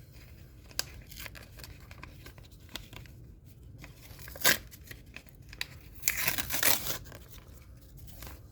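A sticker pack wrapper being torn open and crinkled by hand, in short scattered rips, with a sharp one about four and a half seconds in and a longer stretch of tearing a little after six seconds.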